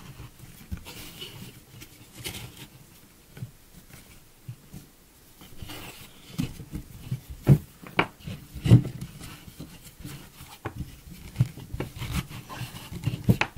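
Braided rope rubbing and sliding over wooden poles as it is wrapped around them by hand, with irregular soft knocks from handling the poles, the loudest about seven to nine seconds in.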